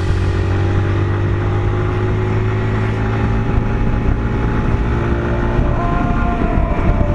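Motorcycle engine running steadily at cruising speed, heard from the rider's seat, with wind and road noise over it; the engine note steps up slightly near the end.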